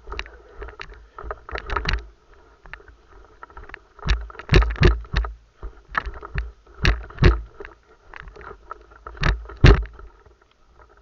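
Footsteps and body movement: irregular heavy thumps, some in quick pairs, over a faint rustle of gear.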